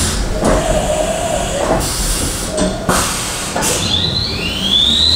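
CNC machining centre starting its cycle: several short bursts of air hiss, then near the end a whine that rises in pitch and levels off high as the spindle spins up.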